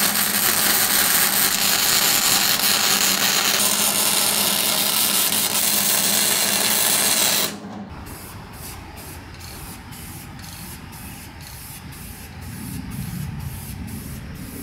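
A MIG welder running a bead on steel tubing and plate: a loud, steady sizzle with a low hum under it, which stops suddenly after about seven and a half seconds. After that comes a much quieter spray paint can, with a quick, regular pulsing hiss.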